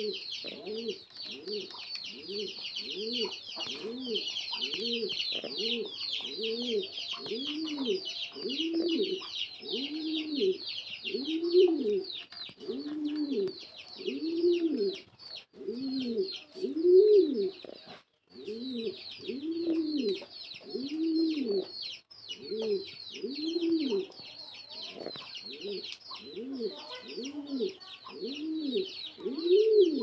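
Rock pigeon at the nest giving low, rhythmic cooing calls, about one and a half a second, with a brief break midway, over a continuous rapid high-pitched chirring.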